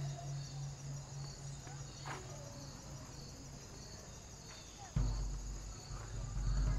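Insects chirping steadily, about two even chirps a second, over a low steady hum; about five seconds in a deep bass sound comes back in suddenly.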